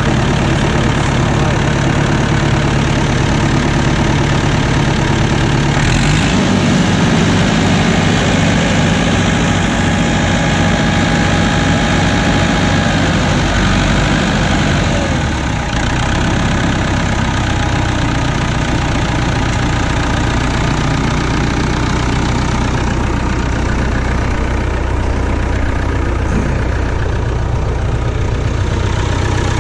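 Massey Ferguson 65 tractor engine running steadily, with no speech over it. About six seconds in its note rises as it revs up, and it settles back to a lower, steady run at about fifteen seconds.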